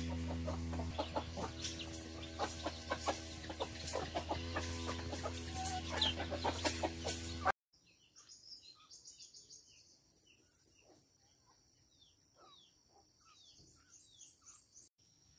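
Hens clucking and scratching in a chicken run, many short clucks over a steady low hum. About halfway through, the sound cuts to quiet birdsong: small birds chirping with short, repeated falling notes and a few high whistles.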